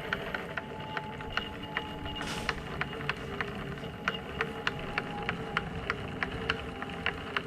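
Onsra Black Carve electric skateboard's left belt-drive motor spinning its wheel freely: a steady motor whine with a regular click about four times a second. The clicking is traced to the left motor, whose case the owner finds has some play.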